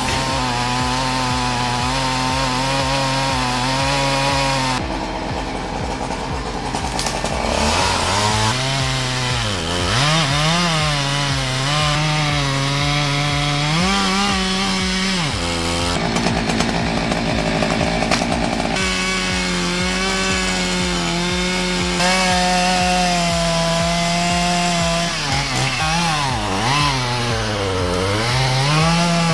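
Chainsaw running and cutting wood, its pitch repeatedly sagging as the chain loads up in the cut and rising again as it frees. There are several abrupt breaks where the sound jumps.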